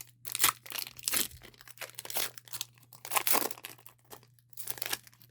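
Foil wrapper of a Pokémon trading card booster pack being torn open and crinkled, in several irregular bursts of crackling.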